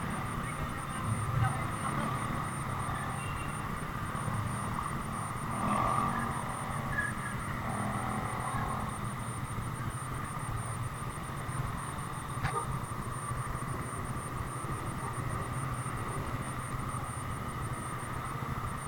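Yamaha motorcycle engine running steadily at low revs, rolling slowly and then idling in neutral. A single short tick sounds about twelve seconds in.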